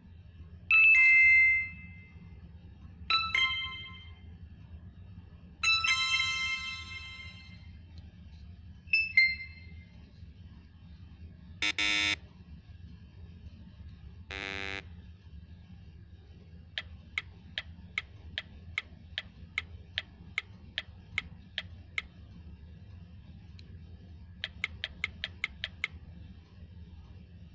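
A run of short stock video sound effects, one after another: four bright chiming dings in the first ten seconds, two short buzzes around the middle, then a long string of sharp ticks about two a second and a quicker burst of ticks near the end, over a low steady hum.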